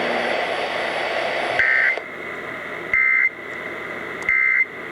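Emergency Alert System end-of-message code sent over AM radio: three short identical bursts of warbling high data tones about 1.3 s apart, the signal that the alert message is over. Before them comes a steady hiss of radio noise.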